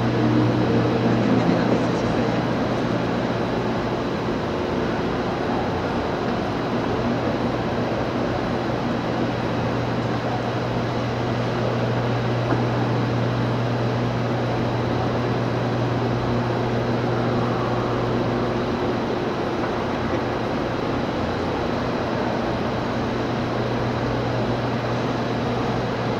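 Steady whirring drone of electric pedestal fans, with a constant low hum, filling a large stone church.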